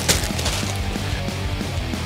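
Background music with a steady beat, and a short noisy burst right at the start.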